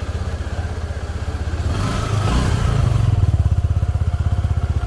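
Suzuki Gixxer SF250's single-cylinder engine and exhaust idling with a quick, even pulse, revved briefly about two seconds in, then running on a little louder.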